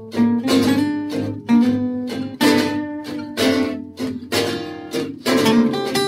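Background music of strummed guitar chords, struck again and again in a steady rhythm.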